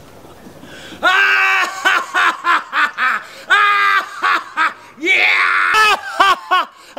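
Loud, high-pitched laughter in short rising-and-falling bursts, several to a second, beginning about a second in and going on with brief breaks.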